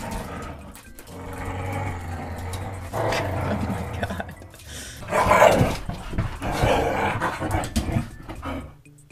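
Two dogs growling as they play tug-of-war over a toy, in rough uneven bursts that stop shortly before the end.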